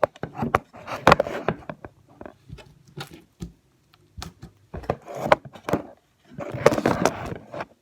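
Sticky slime being squished and pulled off a hand: irregular clicks, pops and squelching bursts.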